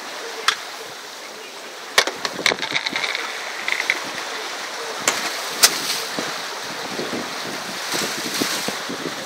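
Wind and sea rushing past a sailing yacht under way. About five sharp clicks and knocks come over it, from handling the orange smoke signal canister as it is set off.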